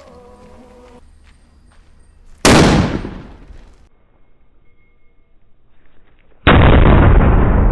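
Sutli bomb firecracker exploding: a sharp, very loud bang about two and a half seconds in that dies away within a second, then a second, duller and longer blast near the end that is still rolling on.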